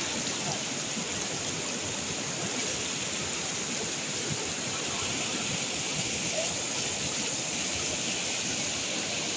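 Fast mountain river rushing over rocks and rapids: a steady, unbroken rush of white water.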